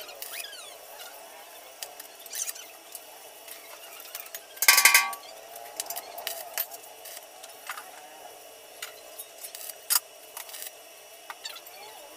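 Stick arc welder tacking a steel band onto a steel water tank: one loud burst of under a second about four and a half seconds in as the arc is struck, with scattered light ticks of the electrode tip against the metal around it.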